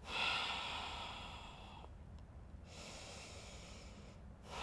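A woman breathing audibly and slowly: two long breaths of about a second and a half each, with a short pause between, and another beginning near the end.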